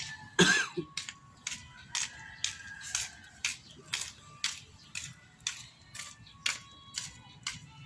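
Hand-tool work on a car's starter wiring: short scraping strokes repeated about twice a second, with one louder knock about half a second in.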